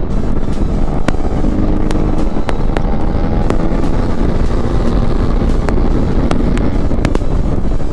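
Motorcycle engine running at road speed, with wind noise on the helmet-mounted microphone and scattered sharp cracks.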